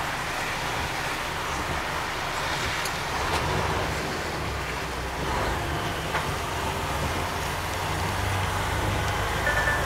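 Articulated truck heard from inside its cab on the move: a steady mix of diesel engine drone and tyre and road noise. The low engine hum grows stronger near the end.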